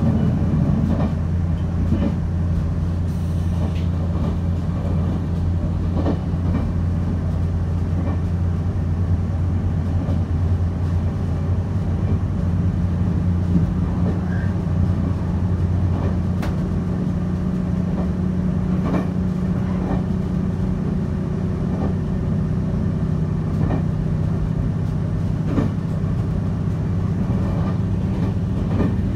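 Inside the carriage of a moving electric passenger train: a steady low rumble from the running gear, with faint clicks every two seconds or so.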